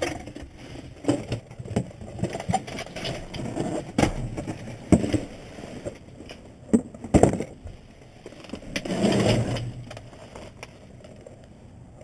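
Rummaging through a dumpster: cardboard boxes and discarded items being handled and shifted, with irregular knocks, scrapes and rustling, and a few sharp knocks.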